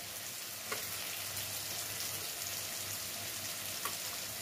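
Onion-tomato masala frying in oil in a kadai, a steady sizzle with two light taps, one under a second in and one near the end.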